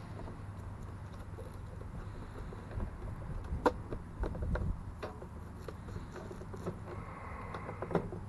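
Scattered light clicks and knocks of gear being handled on a pickup truck's tailgate, over a steady low hum. A faint high tone is held for about a second near the end.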